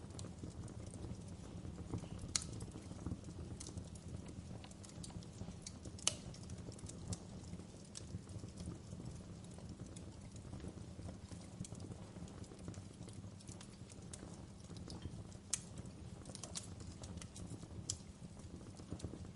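Wood fire burning in a fireplace: a steady low rumble of flames with irregular sharp crackles and pops of burning logs, a few louder pops standing out.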